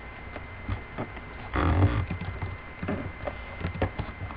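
Irregular light clicks of computer keys being typed, with a brief louder rustle about one and a half seconds in, over a steady low hum.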